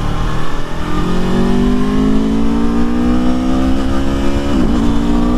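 Aprilia Tuono V4's V4 engine on its stock exhaust, accelerating hard, its pitch climbing steadily, with a brief dip at an upshift about four and a half seconds in. Wind rumbles underneath.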